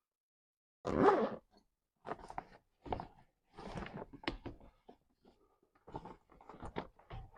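Handling noises from a fabric thermal insulated delivery bag in a cardboard delivery box: a short louder rustle about a second in, then scattered rustling, clicks and light knocks.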